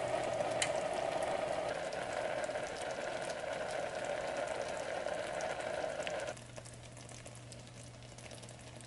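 Cube steaks in onion gravy simmering in a pan: a steady bubbling with light crackles, which drops to a fainter hiss about six seconds in.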